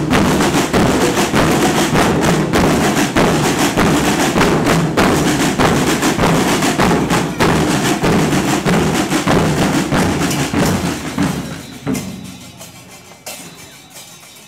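Carnival percussion group drumming a fast, dense rhythm of drums and sharp wooden-sounding hits; the drumming dies away about eleven to twelve seconds in.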